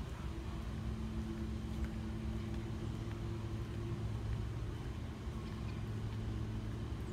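Steady low mechanical hum with a few even, unchanging tones, like a motor or machinery running continuously.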